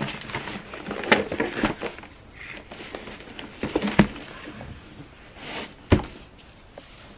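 Wrapping paper and ribbon rustling as hands work a ribbon around a paper-wrapped gift box, with small clicks and two sharp knocks about four and six seconds in.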